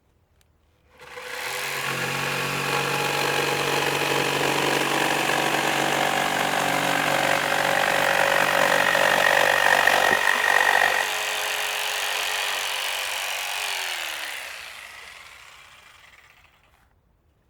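Electric jigsaw starting up about a second in and running steadily with a motor whine, its sound dropping a little near eleven seconds, then switched off and winding down, its note falling as it fades.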